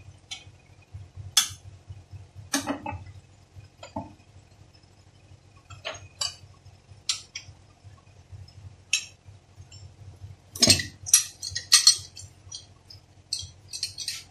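Metal parts of a Toyota Passo steering rack clinking and knocking as they are worked apart by hand in a vise: scattered sharp clinks, with a quick run of them about three quarters of the way through, over a low steady hum.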